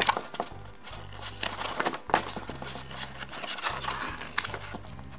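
Paper booklet pages being leafed through by hand: several short, crisp rustles as pages are turned, the loudest near the start and about two seconds in. Quiet background music with a low bass line runs underneath.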